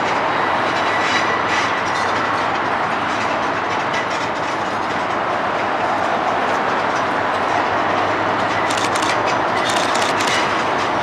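DB Cargo Class 60 diesel locomotive (Mirrlees eight-cylinder engine) hauling a train of hopper wagons slowly past, engine running with a steady drone under the rumble and clatter of wheels over pointwork. A burst of sharper metallic clicks comes about nine seconds in.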